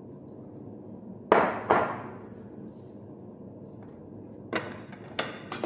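Two sharp knocks of a plastic kitchen bowl against a hard surface about a second in, each ringing briefly, then a few lighter clacks of containers being handled near the end.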